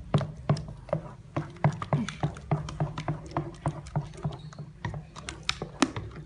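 A spoon knocking and scraping against the sides of an enamel pot in quick, even strokes, about three to four a second, as thickening sago paste (papeda) is stirred hard.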